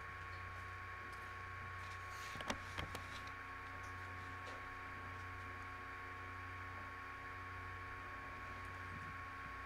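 Steady electrical hum and hiss with a thin steady tone above it, and a short cluster of three or four faint clicks about two and a half seconds in.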